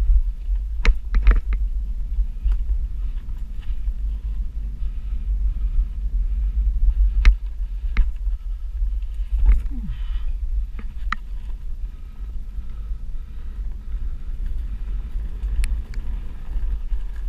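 Onewheel XR+ rolling fast along a dirt forest trail: a steady low rumble from the ride, broken by scattered sharp clicks and knocks as the board runs over the trail.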